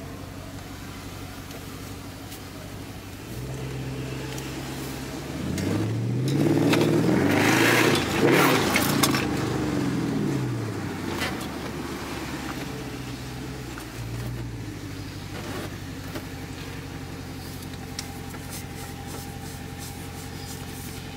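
2013 Dodge Charger SRT8's 6.4-litre HEMI V8, heard from inside the car, running low and steady, then revving up about five seconds in, peaking loudest around eight seconds and winding back down to a steady low hum.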